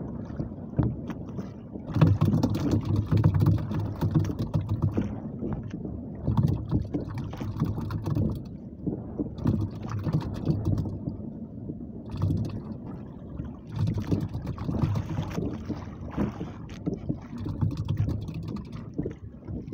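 Wind buffeting the microphone and water lapping and slapping against the hull of a small outrigger fishing boat on choppy sea. It comes in irregular surges, strongest a couple of seconds in and again about two-thirds of the way through.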